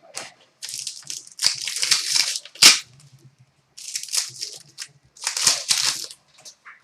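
A foil trading-card pack wrapper being torn open and crinkled in three noisy rustling spells, the loudest a sharp crack near the end of the first.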